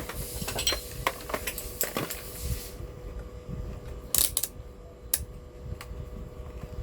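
Soldering on the TV's circuit board: flux sizzling under the iron with small rapid clicks for the first few seconds, then a few sharp clicks and taps of tools on metal.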